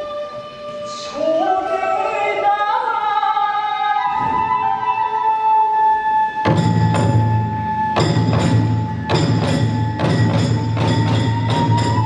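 Kagura festival music: a chanted vocal line that trails off into a long held note on a bamboo flute, then about six and a half seconds in the big drum and small hand cymbals strike up a fast steady beat under the flute.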